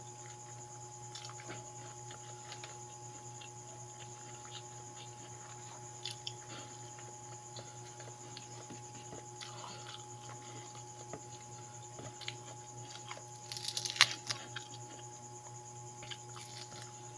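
Close chewing and mouth sounds of a person eating noodles and fried dried fish by hand, with scattered small clicks. About fourteen seconds in comes a short crackling burst, the loudest sound, as a piece of the crisp fried fish is broken off.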